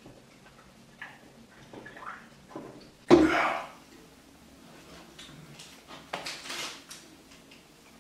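A person drinking from a can and then eating a sandwich: faint swallowing, chewing and paper-wrapper handling. One short loud sound about three seconds in is the loudest thing, and a briefer noisy one follows about six seconds in.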